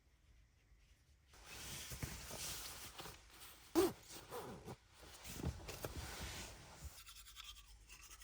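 Fabric rustling and rubbing, as of clothes or bedding being handled, with one short louder peak near the middle. Near the end a fast, even buzz-like pattern begins.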